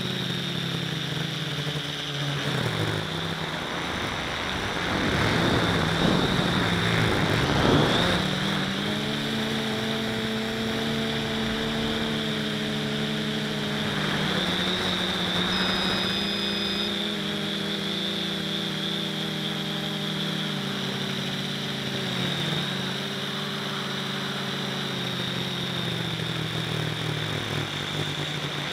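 A small FPV quadcopter's electric motors and propellers whine, heard from on board. The pitch steps up and down as the throttle changes, and a rougher, louder rush comes around six to eight seconds in.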